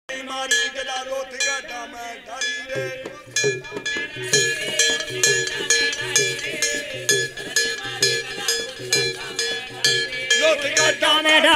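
Folk devotional music: a hand-held brass plate struck with a stick in a quick steady beat, each strike ringing, joined about three seconds in by a dholak drum. A voice starts singing near the end.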